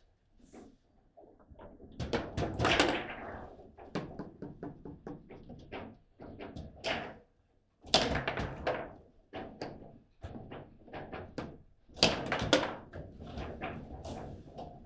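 Table football rally: the ball cracking against the players and the table walls, with rods knocking and thudding as they are spun and slammed. The knocks come in quick irregular clusters, with three heavy flurries.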